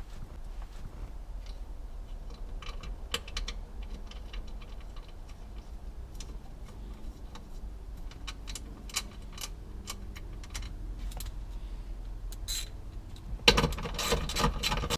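Scattered light clicks and rattles of small parts and wiring being handled, with a louder clatter starting about thirteen and a half seconds in.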